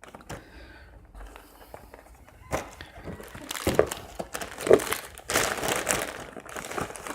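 Packaging crinkling and rustling as it is handled, with many quick crackles, getting louder and busier about two and a half seconds in.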